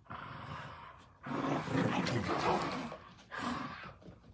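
Two small dogs, one a dachshund, play-growling as they tug at a toy between them. The growling is loudest from about a second in to three seconds in, with a short burst near the end.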